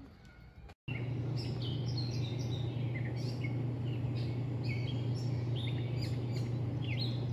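Dawn birdsong: many songbirds chirping and trilling at once, starting about a second in after a brief silence, over a steady low hum.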